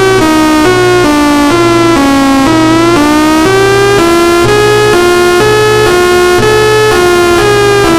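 Synthesizer or electronic keyboard playing a line of held notes that change pitch about twice a second, with a short slide in pitch around the middle.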